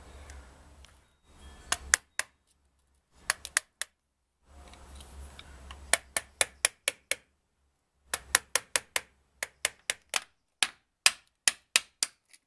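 Hammer tapping on a pipe used as a driver to seat a new bearing into an electric motor's aluminium end bell. The taps are sharp and come in short runs, the last and longest at about three to four taps a second.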